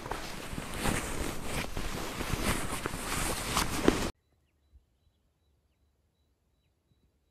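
Outdoor wind noise and rustling with scattered small clicks and crackles, which cuts off abruptly about four seconds in to near silence.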